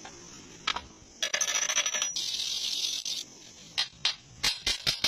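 Slag being cleaned off a stick weld bead on steel plate: metal scraping and clinking, with a click about a second in, two short scratchy bursts, and near the end a quickening run of sharp strokes, about four or five a second.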